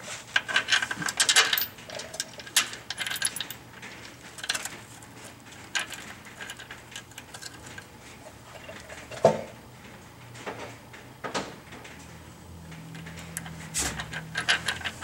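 Scattered metallic clinks and rattles of bolts, nuts and a steel bump-stop bracket being handled, busiest in the first second or two, with one louder knock about nine seconds in.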